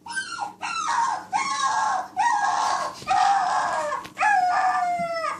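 Recorded dog howling played from a phone: about five long, high-pitched calls, each sliding down in pitch, one after another, cutting off suddenly near the end.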